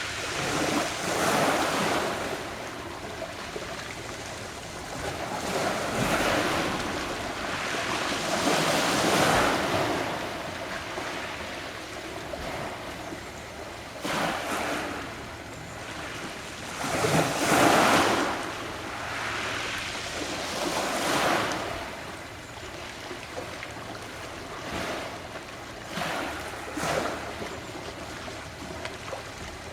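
Adriatic Sea waves washing onto the shore in irregular surges every few seconds, the biggest a little past halfway.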